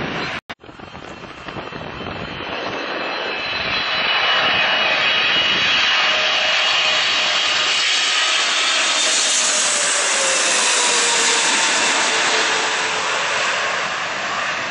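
Jet engines of a widebody twin-jet airliner on final approach passing low overhead: a steady rushing roar that swells after a brief break near the start, with a whine falling in pitch as it goes by, then slowly easing.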